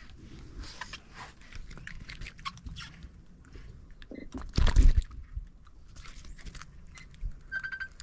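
Close handling noise as a small fish is unhooked by hand: scattered clicks, crunches and rustles, with one loud thump about four and a half seconds in.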